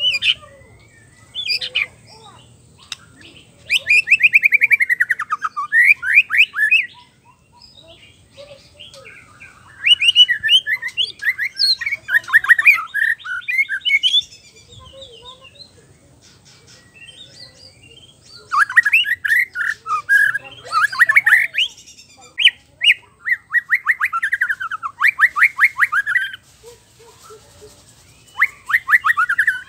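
White-rumped shama (murai batu) singing a varied song in loud bursts of fast repeated whistled notes, some runs sliding down in pitch, with short pauses between the bursts.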